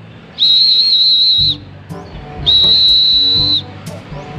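Two long, steady, high-pitched blasts on a whistle, each about a second long with a slight warble and about a second apart, calling homing pigeons down to the loft.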